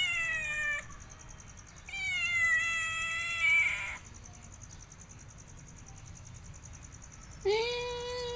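Calico cat meowing three times. The first call falls in pitch and ends under a second in. The second is a long meow of about two seconds. The third starts near the end, rising and then holding.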